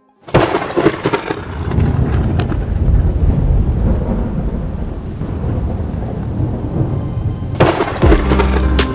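A thunderclap cracks about a third of a second in and rolls on as a long, deep rumble with rain. Music with a beat comes in near the end.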